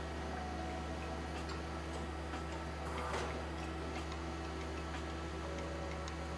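Steady machine hum with scattered light ticks, and a short hiss about three seconds in.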